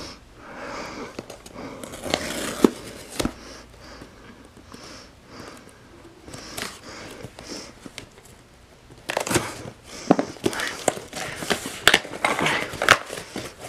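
Paper and cardboard packaging rustling and crinkling as a mail-order box of books is unpacked by hand, with scattered sharp clicks. Soft and sparse at first, the handling gets busier and louder about nine seconds in.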